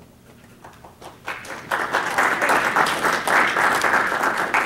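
A small group applauding a welcome: a few scattered claps at first, then steady clapping that builds about a second in and keeps going.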